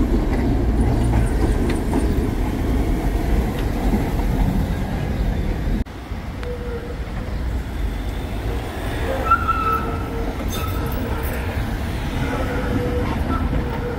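Tram running on rails with a loud low rumble, which drops away suddenly about six seconds in. A quieter rumble follows, with faint steady whines from the wheels or traction motors.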